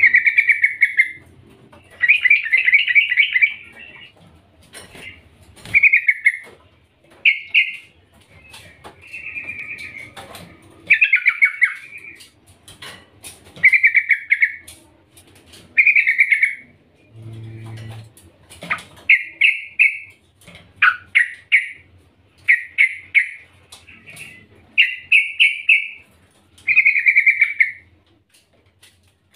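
Yellow-vented bulbul (trucukan) giving short, loud, bubbling chattering phrases, one about every one and a half to two seconds. The uploader presents it as a female calling for a male.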